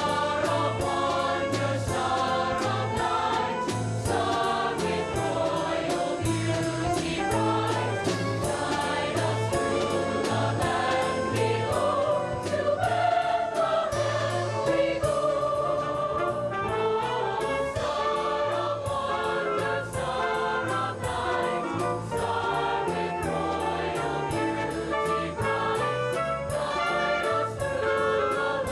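High school choir singing a holiday song over instrumental accompaniment with a bass line and a steady beat.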